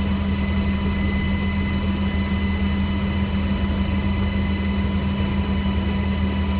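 UH-60 Black Hawk helicopter running steadily at a hover, its twin-turbine engines and rotor making a constant heavy drone with a thin steady whine above it.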